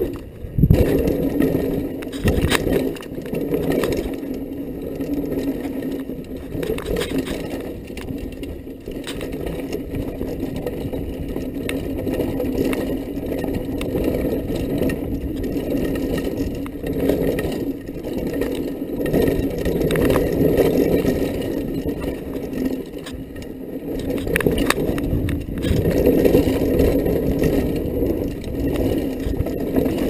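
Mountain bike running fast down a dirt trail: a steady rumble of tyres on dirt, broken by knocks and rattles as the bike hits bumps.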